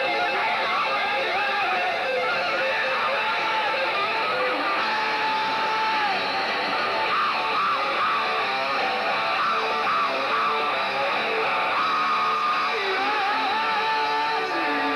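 A live rock band plays at a steady, loud level: distorted electric guitars with drums, and a wavering melody line above them.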